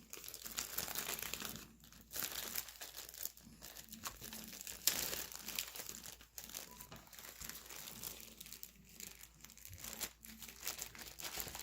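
Plastic bags holding cornstarch crinkling irregularly as they are handled and squeezed.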